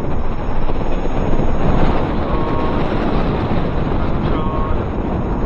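Wind buffeting an action camera's microphone as an electric unicycle rides at speed: a loud, steady rush of noise with no clear pitch.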